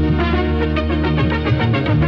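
Instrumental intro music: held tones under a quick run of short notes.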